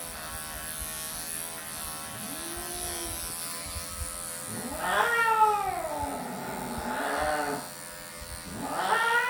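Electric pet clippers hum steadily while an elderly longhaired cat yowls loudly twice, once about five seconds in and again near the end, with fainter low mewls between. The cat is complaining at having its matted coat clipped.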